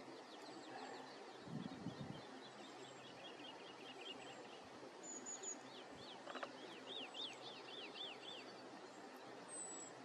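Faint songbird chirping: quick runs of short high notes, about five a second, loudest a few seconds before the end, over a steady outdoor hiss. A couple of low thumps sound near two seconds in.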